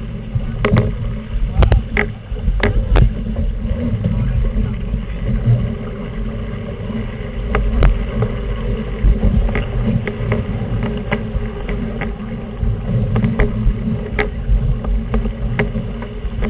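Strong wind buffeting the microphone of a camera mounted on a Flying Eleven dinghy sailing hard, with water rushing along the hull. Sharp knocks and clicks from the boat come scattered through, several of them in the first three seconds.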